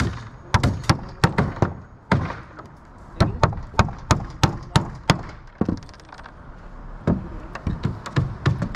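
Claw hammer nailing a thin wood patch down onto old plank roof decking: quick runs of sharp strikes, about four a second, with short pauses between runs.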